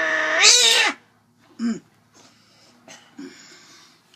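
Domestic cat yowling in protest at being held for a claw trim: a long drawn-out yowl that cuts off about a second in, then two short cries. The owner says the trimming does not hurt her.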